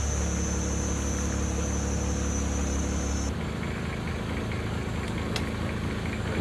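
A boat's engine running steadily, heard from on board, with a deep drone. About three seconds in, the recording cuts and the engine sound continues less deep.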